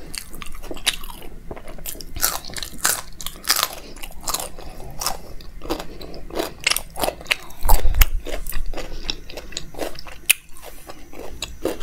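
Close mouth sounds of a person chewing a mouthful of makki ki roti (maize flatbread) with sarson ka saag: irregular wet smacks and clicks, with one low thump a little under eight seconds in.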